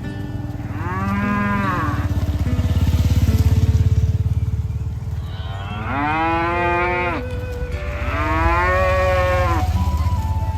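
Cows mooing: three long moos, each about a second and a half and rising then falling in pitch. The first comes about a second in and the other two near the end.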